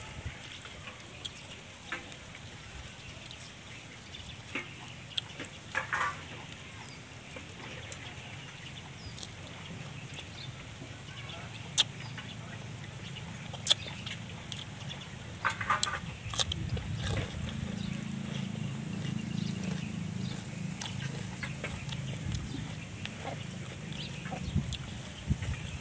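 Close eating sounds: fresh lettuce and food handled by hand, with chewing and scattered mouth clicks and crackles. A few brief animal calls sound in the background, and a low hum swells for a few seconds past the middle.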